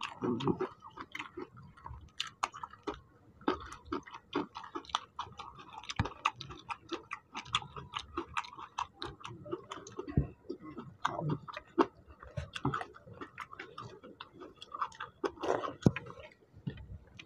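Close-up chewing of watery fermented rice (panta bhat) eaten by hand: a steady run of small, irregular wet clicks and smacks from mouths and from fingers working the soaked rice.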